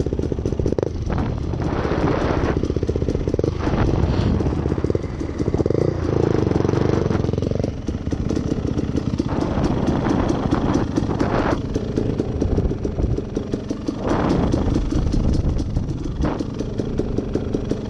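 Dirt bike engine running, the revs rising and falling as the bike rides the trail, with repeated rushes of noise over it.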